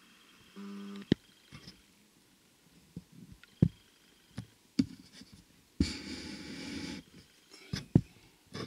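Handling noises: scattered sharp clicks and knocks, and about a second of rustling around six seconds in.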